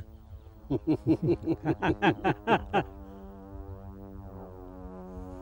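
Dramatic background music: a quick run of about ten notes, each bending down in pitch, then a held synthesizer chord.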